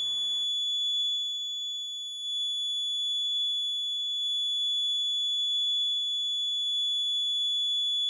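Beep buzzer of a home-made fire alarm sounding one steady, piercing high-pitched tone. It is held on by a fluorescent tube-light starter bulb used as the heat sensor, which stays closed while the bulb is still hot from a match flame.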